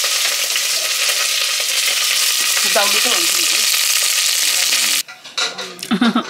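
Food frying in hot oil in a pan: a steady sizzle that cuts off abruptly about five seconds in. A few light knocks and a short voice follow near the end.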